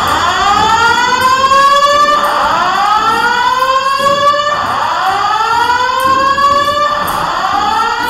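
Building alarm sounding a repeating whoop: each tone rises in pitch over about two seconds, then drops back and starts again.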